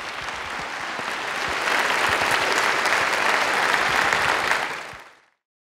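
Audience applauding, growing louder through the first couple of seconds and then fading away about five seconds in.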